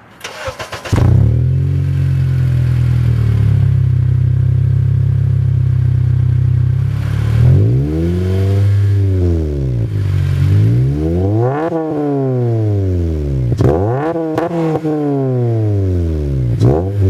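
A 2005 Acura TSX's 2.4-litre four-cylinder engine, breathing through a Skunk2 cat-back exhaust, cranks and catches within the first second. It idles steadily, then from about seven seconds in it is revved several times, each rev rising and falling back toward idle.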